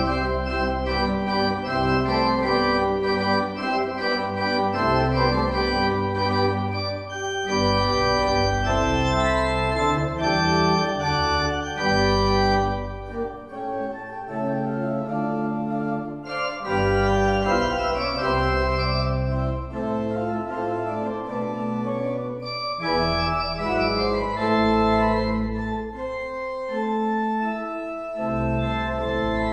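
Church organ played solo: sustained chords over deep bass notes, changing about once a second, with a briefly softer, thinner passage about halfway through.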